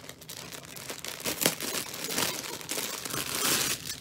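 Thin plastic packaging crinkling and rustling as it is handled and pulled open, with a sharp crackle about a second and a half in and a louder spell of crinkling near the end.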